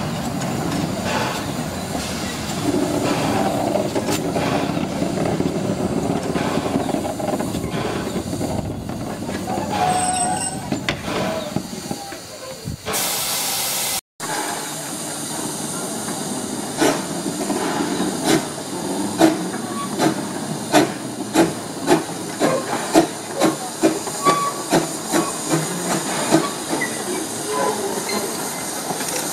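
Narrow-gauge steam locomotive running on the line: a steady rumble of the train rolling past, then a short burst of steam hissing. After a brief break comes the locomotive's exhaust chuffing in even beats that come closer together as it gathers speed.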